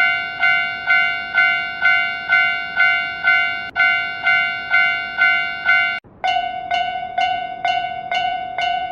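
Japanese railroad crossing warning bell, a ringing electronic clang repeated about twice a second. About six seconds in it stops for a moment, then resumes with a slightly wavering tone.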